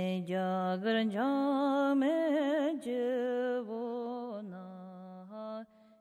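A single unaccompanied voice singing a slow, chant-like melody. It holds long notes with wavering ornaments and steps between them, growing quieter near the end.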